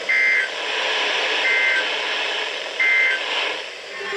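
Three short EAS end-of-message data bursts, each a harsh two-tone digital warble about a third of a second long, sent a little over a second apart over weather-radio hiss. They mark the close of the alert broadcast.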